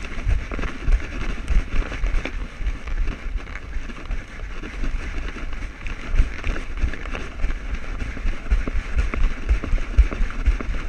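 Handling noise from a camera strapped to a running dog's back: rapid, uneven low thumps as the mount jolts with each stride, over a steady hiss.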